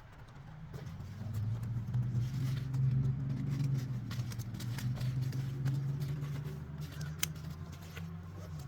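A motor vehicle's engine running close by: a steady low hum that builds about a second in and eases near the end. Scattered light clicks and knocks sit on top of it.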